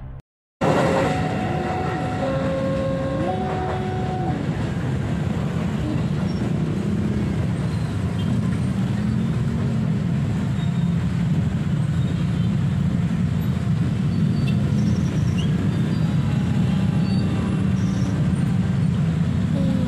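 Steady low rumble of a passing electric commuter train, with a few short tones alternating between two pitches in the first few seconds.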